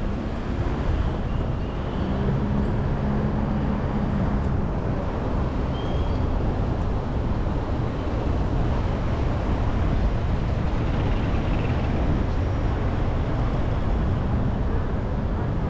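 City traffic and road noise from a car driving along a busy avenue: a steady rumble of engines and tyres, with a low hum from a nearby engine standing out for a couple of seconds about two seconds in.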